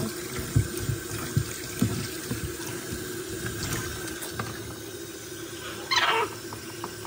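Faucet water pouring in a steady stream onto a capuchin monkey and into a plastic laundry utility tub that is draining rather than filling, with a few dull knocks in the first two seconds. A brief high-pitched squeak sounds about six seconds in.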